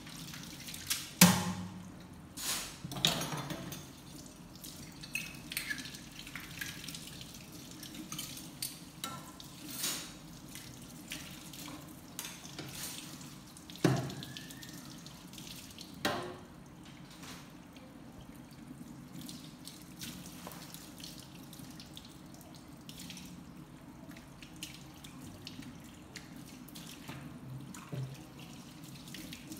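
Washing up by hand at a low basin: water splashing and dripping, with irregular knocks and clinks of utensils, the loudest about a second in and again near 14 seconds.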